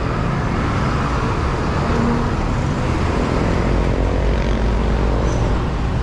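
Steady road traffic noise from passing cars and trucks, with one vehicle's engine note standing out faintly about halfway through.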